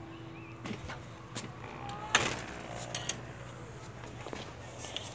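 Camper door being opened and stepped through: a few knocks and rattles, with one loud bang of the door about two seconds in.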